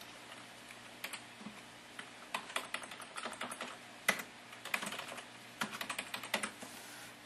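Typing on a computer keyboard: irregular runs of key clicks, starting about a second in and stopping shortly before the end.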